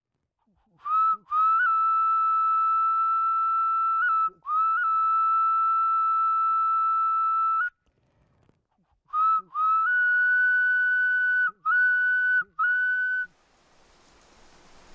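A high whistle playing long steady notes: two held notes of about three seconds each, then after a pause a phrase of four shorter, slightly higher notes, each note sliding up into its pitch. Near the end a soft hiss fades in.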